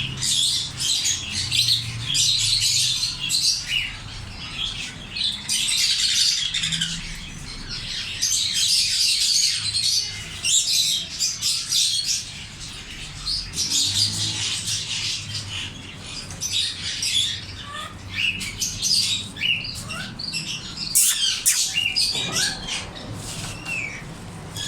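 African grey parrots chirping, whistling and squawking in dense, near-continuous chatter, with a few louder sharp squawks about 21 seconds in.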